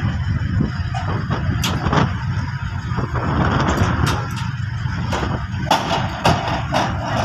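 Low rumble of wind buffeting the microphone, with scattered sharp clicks and knocks.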